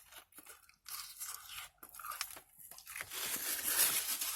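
Close-up chewing and crunching of fried food in the mouth, with irregular crisp crackles that grow denser and louder about three seconds in.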